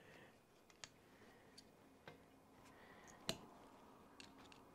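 Faint, sparse clicks of a hex driver and small screws as the cush drive assembly is unscrewed, with one sharper click about three seconds in.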